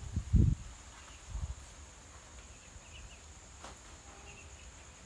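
Night insects such as crickets keep up a steady high-pitched trill, with a few faint chirps over it. Two low dull thumps come about half a second and a second and a half in, the first the loudest.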